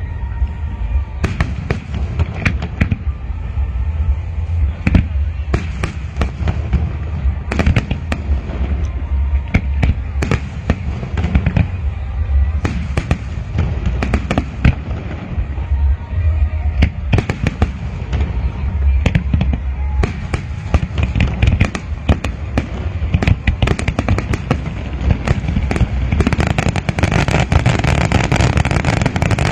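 Aerial fireworks display: a continual run of bangs and sharp pops over a heavy low rumble, turning into a denser crackle near the end.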